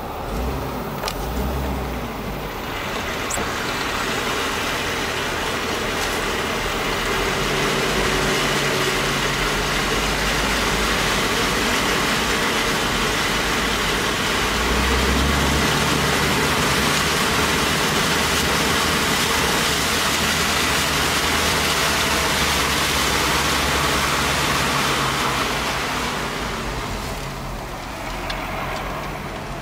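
Jeep Wrangler driving through water over a flooded road, heard from inside the cab: the engine runs under a steady rush of water spray from the tyres. The rush builds up over the first few seconds and fades away near the end.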